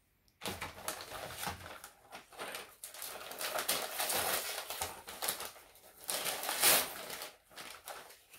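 Gift wrapping paper crinkling and tearing as a small present is unwrapped by hand, with one louder rip about two-thirds of the way in.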